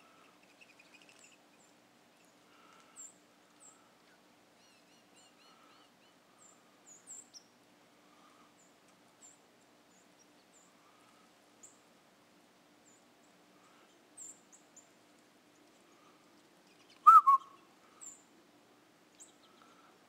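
A flock of small songbirds feeding, giving short high chip notes scattered throughout, with a few quick trills. One much louder, sharp sound cuts in about three seconds before the end.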